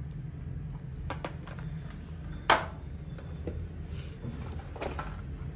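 Hot Wheels blister-carded cars being handled and shuffled in a cardboard box: scattered clicks and rustles of plastic blisters and card, with one sharp click about two and a half seconds in. A steady low hum runs underneath.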